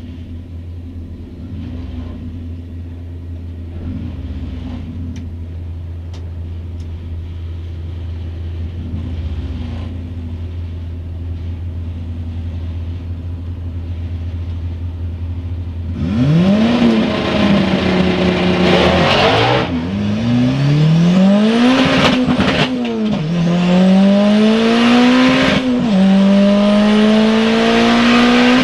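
Turbocharged Nissan SR20VE inline-four in a 200SX, heard from inside the cabin: idling with a steady low drone and a few light throttle blips, then about 16 seconds in it launches hard and revs up through the gears, with two sharp drops in pitch at the upshifts.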